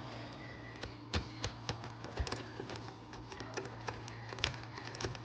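Homemade double-peak rake being worked in the keyway of a Master Lock 570 padlock: a scatter of light, irregular metallic clicks and ticks as the pins are raked, over a steady low hum.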